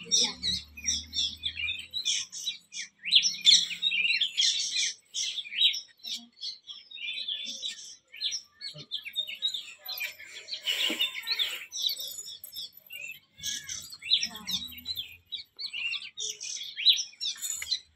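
Many small birds chirping together, a dense, busy chorus of short high calls.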